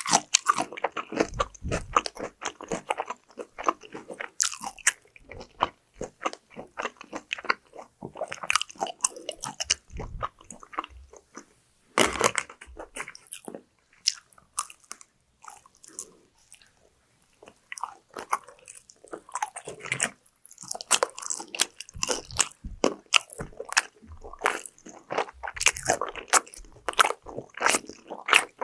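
Close-miked eating: crisp crunching bites into fried food and chewing, with a quieter lull of a few seconds about halfway through.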